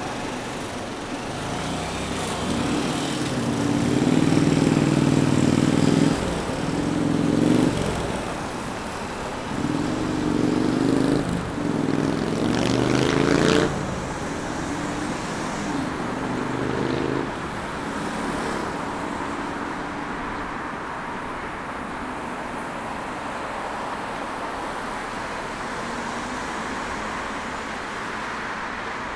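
Street traffic: motor-vehicle engines hum close by in several stretches through the first half, over a steady road noise that carries on after they fade.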